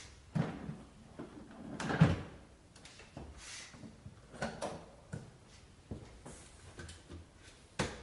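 Hollow plastic knocks and clicks of a Kärcher SE 5.100 spray-extraction cleaner's motor head being set onto its yellow tank and latched, with a handful of separate knocks, the loudest about two seconds in and another sharp one at the end.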